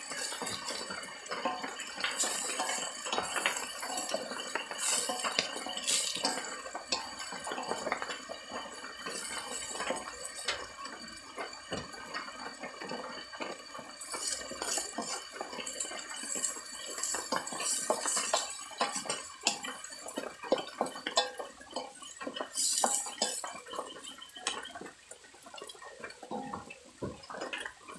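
A spatula scraping and knocking against a metal wok over and over as fried rice is stirred and tossed, over a low frying sizzle.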